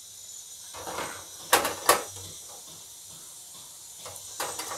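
Cashew pakodi deep-frying in hot oil on a low flame with a steady sizzle, while a metal slotted spatula clinks against the pan twice about a second and a half in and once more near the end.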